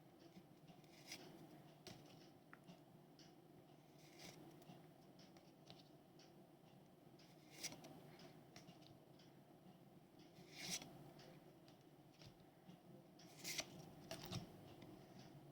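Faint handling of trading cards and their packaging: a few short rustles and flicks, several seconds apart.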